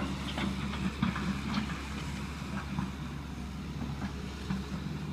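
A tracked excavator's diesel engine runs steadily at the demolition rubble pile, with scattered knocks and clanks of debris, the loudest just at the start.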